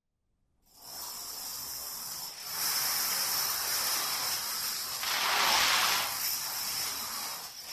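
Dominoes toppling in a chain reaction: a dense, continuous clatter of many small pieces falling. It starts under a second in, grows fuller about two and a half seconds in, and is loudest around five to six seconds in, as several lines of the domino field fall at once.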